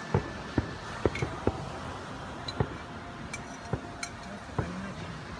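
Fireworks going off: a string of irregular sharp bangs and pops, about two a second.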